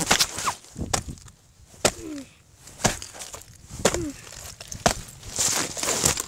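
Sneakers stepping on thin ice and breaking it: a sharp crack about once a second, with crunching and scraping of broken ice shards between the steps.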